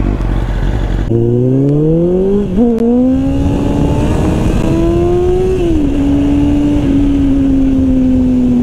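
Kawasaki Ninja sport bike's engine pulling away. The revs climb from about a second in, break briefly at a gear change at about two and a half seconds, climb again, then drop after the middle and hold nearly steady at a cruise, with wind rush on the microphone.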